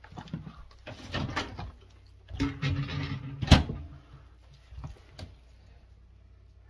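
Thick tamale masa with beans being beaten by hand with a wooden spoon in a plastic bowl: irregular wet slapping and scraping strokes in two bursts, with one sharp knock of the spoon against the bowl about three and a half seconds in and a few lighter knocks later.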